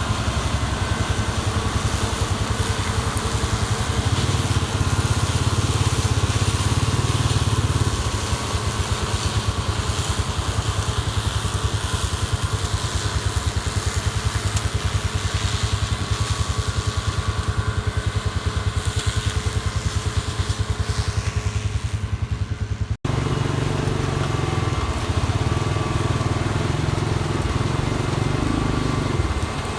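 Combine harvester's engine and machinery running steadily under load. The sound cuts out abruptly for an instant about two-thirds of the way through, then resumes.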